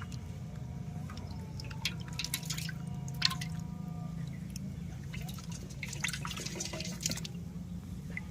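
Water dripping and splashing in two clusters of short strokes, over a steady low hum.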